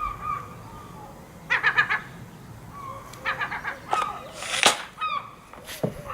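Repeated honking bird calls in several short bouts, with a short, loud burst of hissing noise about four and a half seconds in.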